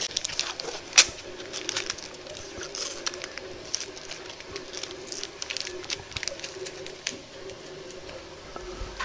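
Protective paper masking being peeled off a clear laser-cut acrylic panel: irregular crackling and tearing of the paper, with a sharp click about a second in.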